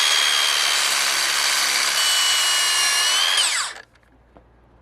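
Makita DLS600 18 V cordless mitre saw running at full speed while trimming a thin sliver, about 2 mm, off a workpiece: a steady high whine. The pitch dips slightly about two seconds in and rises just before the motor stops abruptly near four seconds in.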